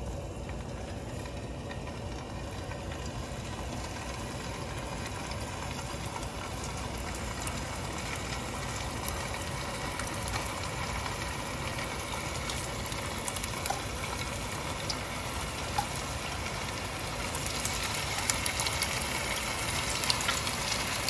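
Raw chicken koftas (meatballs) being laid one by one into shallow oil in a frying pan, the oil sizzling softly as they start to brown. The sizzle slowly grows louder, with more crackling near the end.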